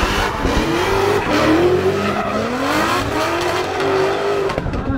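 Drift cars sliding through a corner, engines revving hard with the pitch rising and falling again and again over tyre squeal.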